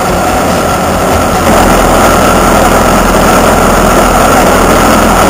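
Vehicle engine running steadily while driving along a rough, potholed road, getting louder about a second and a half in.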